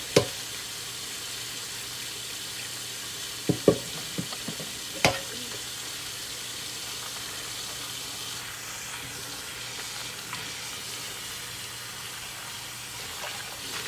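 Kitchen tap running steadily into the sink during hand dishwashing, with dishes clinking against each other: once just after the start and a few times around four to five seconds in, the last with a short ring.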